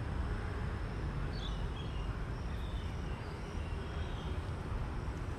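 Steady outdoor ambience: an even low rumbling hiss, with a few faint, short, high chirps from about one to four seconds in.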